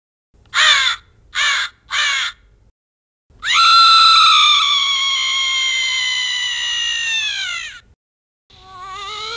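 Battery-operated Halloween sound machine playing a recorded crow cawing three times through its small speaker. This is followed by a long cry held for about four seconds, which slides down in pitch at the end. A wavering sound begins near the end.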